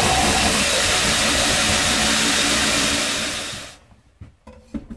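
DeWalt cordless drill spinning a buffing wheel against a steel knife blade. It runs steadily, then winds down and stops about three and a half seconds in, and a few light knocks follow.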